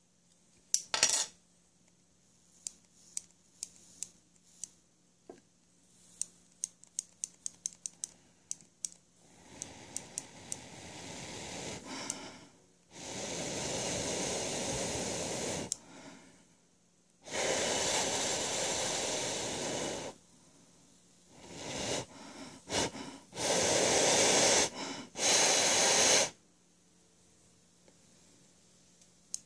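Atomizer's wire coil fired on a tube mod in four hissing bursts of a few seconds each while it glows. Before them, a loud click about a second in and a run of small ticks.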